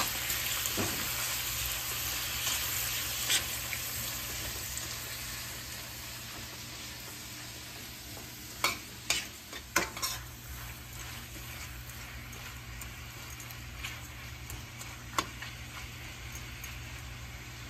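Shrimp sizzling in melted butter in a stainless steel pan, stirred with a metal spoon. There are a few sharp clinks of the spoon against the pan around the middle and one more near the end. The sizzle slowly grows quieter.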